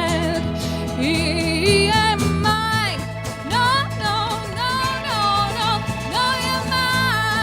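A band playing a country-tinged song live, with a singer holding long, wavering notes over guitar and bass.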